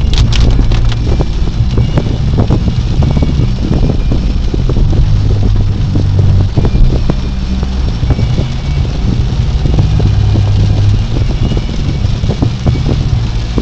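Inside a car's cabin while driving through a rainstorm: a steady low rumble of engine and tyres on the wet road, with rain hissing and drumming on the roof and windshield in many scattered sharp taps.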